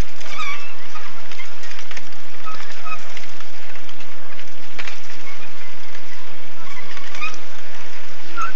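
A pack of mountain bikes rides past on grass under a steady rushing noise, with scattered short high-pitched calls and a few sharp clicks.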